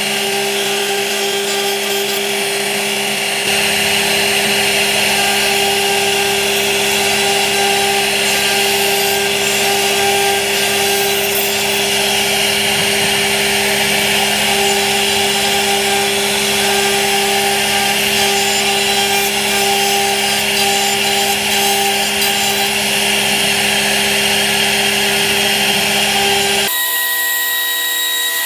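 CNC router spindle running steadily with a constant whine while its small carving bit cuts relief into a wooden door panel. Near the end the sound abruptly changes to a thinner tone.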